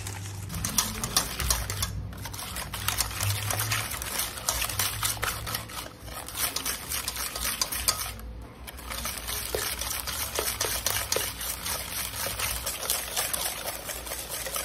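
Eggs and sugar being beaten by hand in a bowl, the utensil clicking rapidly and steadily against the bowl, with a few brief pauses.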